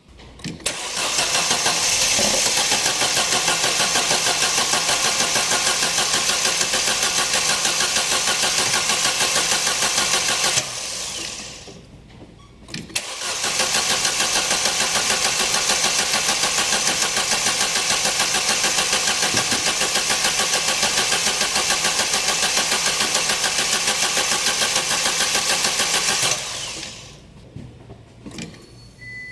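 A 2011 Opel Meriva's Ecotec engine cranking on the starter from stone cold in two long, steady stretches, each about ten to thirteen seconds, with a short gap between them; the sound dies away near the end. The drawn-out cranking is the hard cold start the car is in for.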